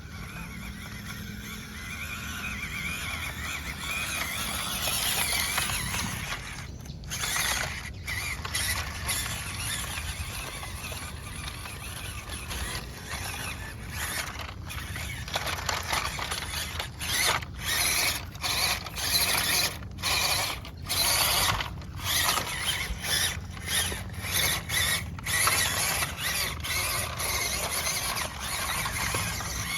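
Electric motor and plastic gearbox of a 1/16-scale WPL C24-1 RC Toyota Hilux crawler whining as it drives. Over the second half the throttle is worked on and off, so the whine starts and stops again and again in quick spurts.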